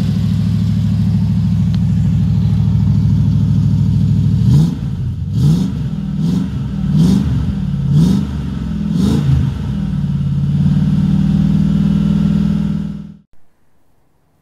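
Triumph Stag's 3.0-litre V8 idling evenly through its twin exhaust, then given about six quick blips of the throttle, roughly one a second, each a short rise and fall in pitch. It settles back to a steady idle and stops abruptly near the end.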